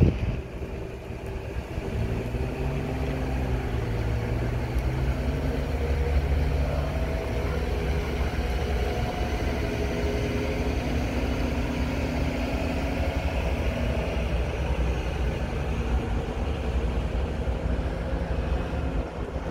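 Steady low diesel rumble of a slowly approaching Canadian National freight locomotive, its engine tones wavering in pitch for a few seconds after the start.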